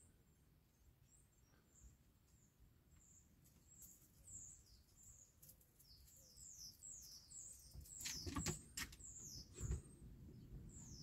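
Songbird singing: a run of quick, high chirps sliding downward in pitch, getting busier as it goes. A few sharp knocks near the end are the loudest sounds.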